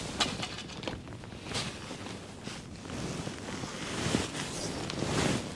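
Outdoor ambience with wind noise on the microphone and a few faint clicks and rustles of tackle being handled.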